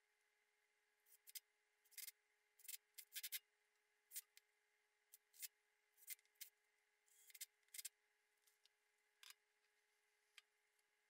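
Faint clicks and short scrapes of a metal lathe faceplate and screws being handled and fitted against a slice of cherry log, a dozen or so separate ticks spread over several seconds, over a low steady hum.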